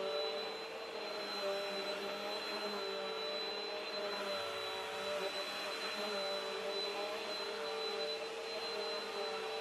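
Bissell upright vacuum cleaner running steadily: an even motor hum with a high, constant whine.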